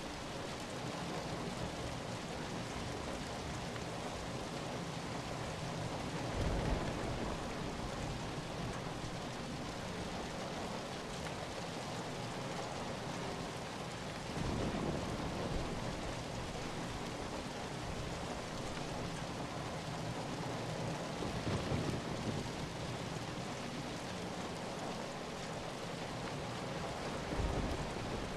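Steady rain falling, an even hiss of drops, with four brief louder swells that reach down low, about every seven seconds.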